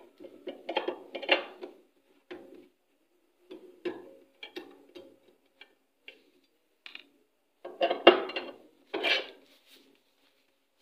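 Open-end wrench clinking and knocking on the bolts and metal cover of a washing machine as the cover is unfastened: irregular metal taps and clicks, loudest about eight to nine seconds in.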